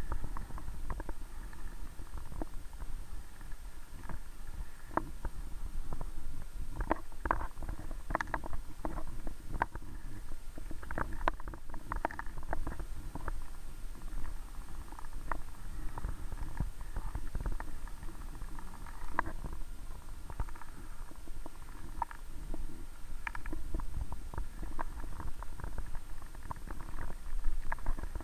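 Muffled underwater noise picked up by a camera held under the lake's surface: a steady low rumble with many small clicks and ticks scattered through it.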